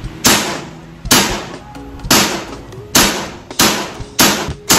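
Seven shots from an EMG Combat Master 2011 John Wick gas blowback airsoft pistol, each a sharp crack, about a second apart and coming a little faster near the end.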